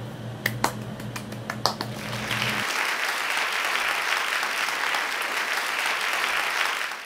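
Applause, a dense steady clapping that swells in about two seconds in and fades out at the end. Before it come a few sharp clicks over a low hum.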